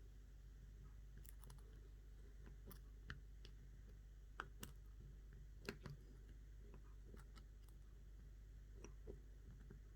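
Faint, irregular metallic clicks of picking tools working a Brady slider lockout padlock, a broken pick pushing the sliders while tension wrenches hold them, with a low steady hum underneath.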